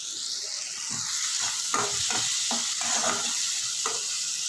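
Chopped ginger, carrot and shredded cabbage sizzling in melted butter in a pan while being stirred, with irregular scrapes and taps against the pan. The sizzle grows a little louder about a second in.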